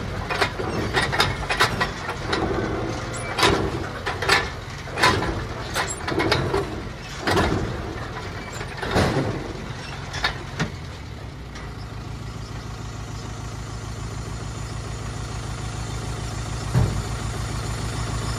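Tractor engine running steadily as the hydraulic tipper trailer lifts its bed to dump chopped silage. For about the first ten seconds there is a series of sharp knocks and clanks, then only the engine hum, with one more knock near the end.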